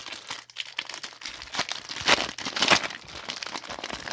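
Foil booster-pack wrapper for trading cards crinkling as it is handled and torn open: a dense run of crackles, loudest about two to three seconds in.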